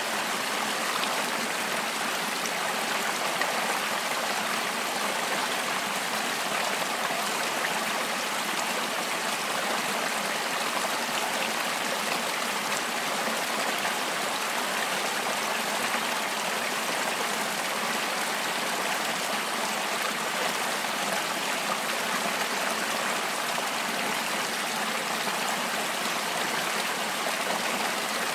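Rocky river rapids: white water rushing over stones in a steady, unbroken rush.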